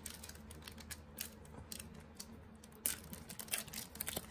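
Trading card packs and cards being handled on a table: a run of light, irregular clicks and rustles, with a louder crackle a little under three seconds in.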